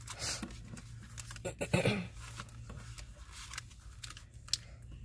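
Plastic-wrapped sticker packs and cellophane embellishment bags being gathered up and lifted off a craft table: scattered crinkling and rustling handling noises, loudest about two seconds in.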